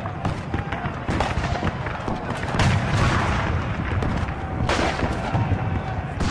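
Battle sounds: gunfire and blasts over a steady low rumble, with two louder blasts about two and a half and four and a half seconds in.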